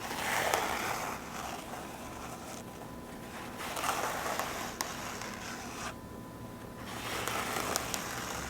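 Paper towel being torn by hand in three drawn-out rips a few seconds apart, each with a few sharp snaps in it.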